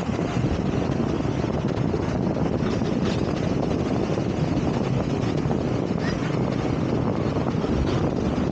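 Hong Kong double-decker tram running along its street track: a steady rumble of wheels and motors, with wind buffeting the microphone.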